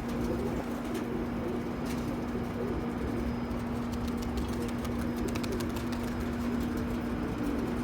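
Domestic pigeons cooing, over a steady low hum, with scattered light clicks.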